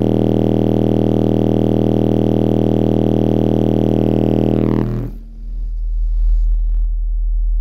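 Car-audio subwoofers playing a loud, steady sub-bass test tone for an SPL meter reading, heavily distorted on the recording. About five seconds in the buzzy upper part drops away, leaving a deeper, cleaner low hum that stops near the end.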